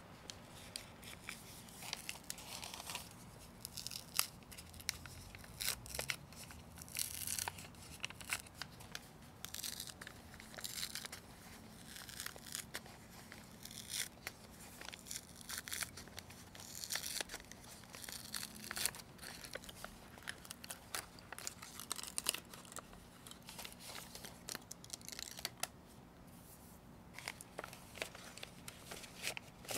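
A paper envelope being torn open by hand, with short, faint rips and paper rustles coming on and off.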